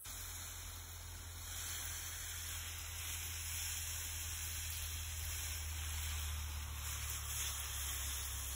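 Water spraying steadily from a garden hose nozzle onto soil and potato plants, a continuous hiss, with a steady low rumble underneath.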